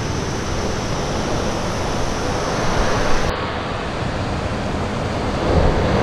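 Waterfall cascading over rocks: a steady, loud rush of water.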